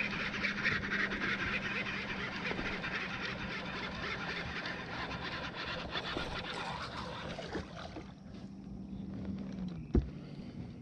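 Steady low hum of a bass boat's electric trolling motor, dropping in pitch near the end as it slows. Over it, a rushing hiss fades out over the first several seconds, and a single sharp knock comes just before the end.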